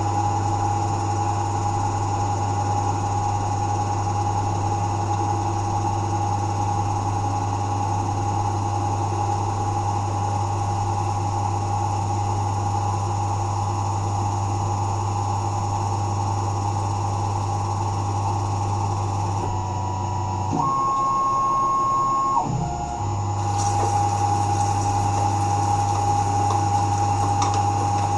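Tormach 1100 mill spindle spinning a 3-jaw chuck while turning a steel tool-holder blank: a steady hum with a steady whine above it. About twenty seconds in, the hum stops for about two seconds while a higher steady tone sounds, then the hum resumes.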